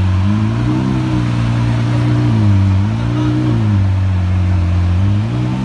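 Twin-turbo Lamborghini Aventador V12 at low revs, given light throttle a few times so that its note swells up and settles back slowly, about three times.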